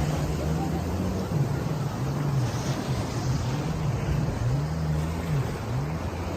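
A watercraft engine running, its hum rising and falling in pitch again and again, over wind and water noise.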